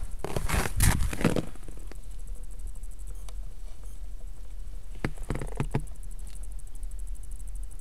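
Unprocessed audio from a PR600C trail camera's built-in microphone: about a second and a half of crunching, rustling noise, then the camera's steady hiss with a low hum. A few faint clicks and a short soft rustle come about five seconds in.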